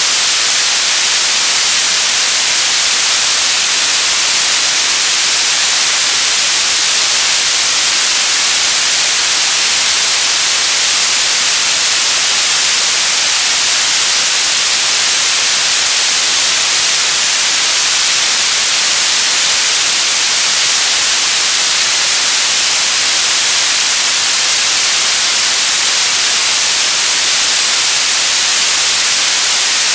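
Radio static: a loud, steady hiss, brightest in the highs, with no tones, voices or breaks.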